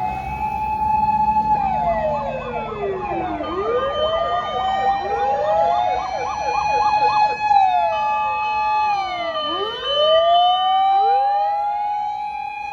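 Fire engine sirens sounding on an emergency run: a wail rising and falling in long sweeps, with several siren tones overlapping. A rapid yelp warbles over the wail from about two and a half to seven and a half seconds in.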